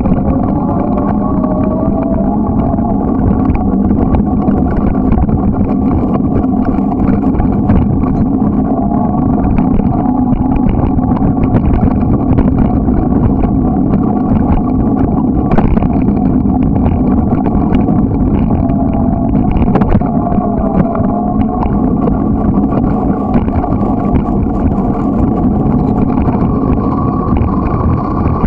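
Steady, loud droning rumble of a bicycle in motion on pavement and gravel, with a faint wavering hum over it.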